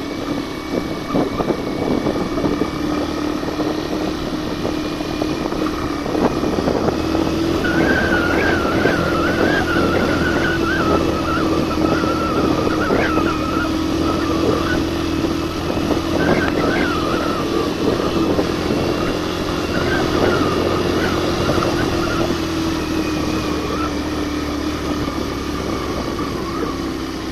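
Suzuki GN 125's single-cylinder four-stroke engine pulling steadily under load, carrying two people up a steep dirt climb. Its note firms up about a third of the way in and eases off near the end, with rattling and clicking from the bike over the rough track.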